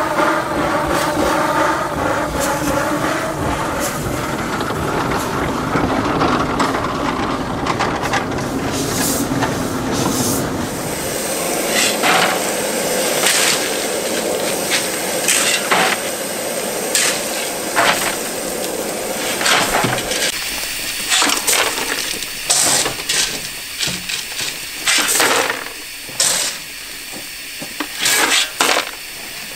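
One-foot gauge 0-4-2 tank steam locomotive running on the track with a rumble for about the first ten seconds, then short bursts of steam hissing at irregular intervals.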